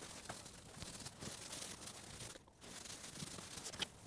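Faint rubbing and rustling of a foam applicator sponge being worked across a painted panel, spreading a coating-removal product. The sound drops out briefly about halfway through.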